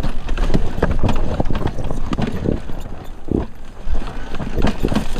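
A dirt bike bumping down a steep rocky trail: irregular knocks and clatter as the wheels and suspension hit stones, over a steady low rumble.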